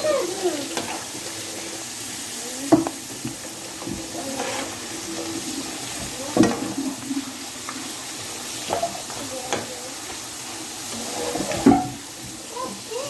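Food frying in hot oil, a steady sizzle broken by three loud sharp pops or knocks.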